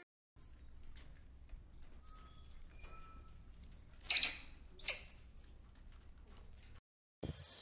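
High-pitched animal squeaks, short and irregularly spaced, with two louder, harsher squeals about four and five seconds in.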